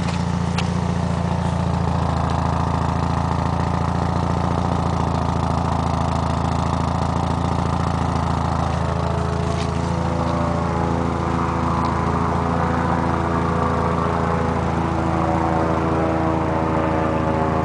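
Naturally aspirated four-cylinder engine of a 1995 Mitsubishi Eclipse RS running steadily at idle, with a constant low hum.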